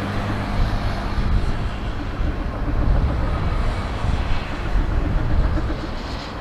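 Jet airliner's engines heard at the runway: a loud, low, uneven noise, with a hum that fades out in the first second or so.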